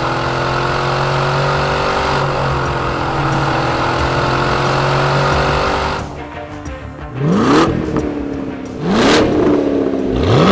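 Chevrolet Corvette C7's 6.2-litre V8 through a Borla exhaust: a steady, even engine note for about six seconds, then three sharp revs, each rising quickly in pitch and falling away, like throttle blips.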